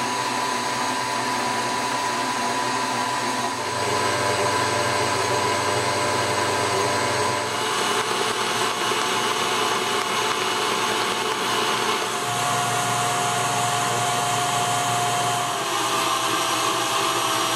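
Electric stand mixer running steadily, its wire whisk beating egg whites and sugar into meringue in a stainless steel bowl. The motor's tone shifts a few times.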